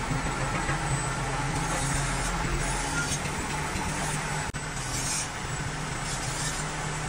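Heavy truck engine running steadily, with a momentary drop about four and a half seconds in.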